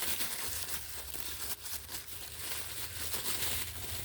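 Packaging crinkling and rustling in irregular little bursts as it is handled and unwrapped, over a steady low hum.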